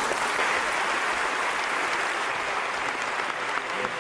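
Large audience applauding steadily, a dense even clatter of many hands clapping, welcoming a speaker just introduced.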